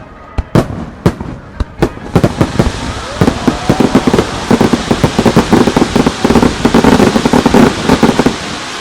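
Fireworks starmine barrage. There are separate shell bursts at first. From about two seconds in comes a dense, rapid run of bursts and crackling that builds up and stops just before the end, then fades away.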